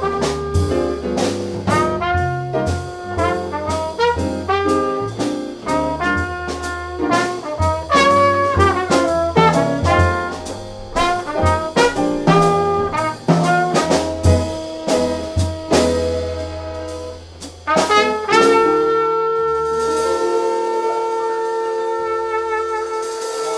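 Jazz combo playing: trumpet lead over piano, upright bass and drums. About 18 seconds in the band hits a final chord and the trumpet holds one long note over a cymbal wash to close the tune.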